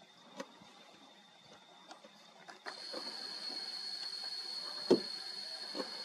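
Outdoor ambience: a steady high-pitched buzz with hiss sets in suddenly about two and a half seconds in, with a few scattered clicks and one sharper knock near the end.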